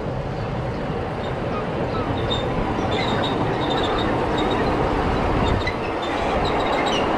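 Miniature ride-on passenger train running across an elevated curved bridge, its rumble growing louder as it comes closer. Short high wheel squeals come in from about two seconds in.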